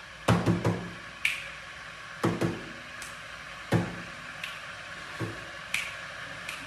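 Sharp finger snaps at irregular spacing, mixed with several louder low, pitched knocks, a cluster of them in the first second and single ones further on.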